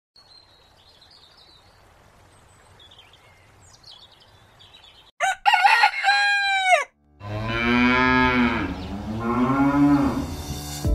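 A rooster crowing about five seconds in, followed by a cow mooing in a long, low call. Faint high chirps come before the crow.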